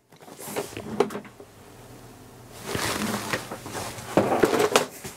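A metal make-up case being handled: a few sharp clicks and knocks, then rustling and rummaging twice.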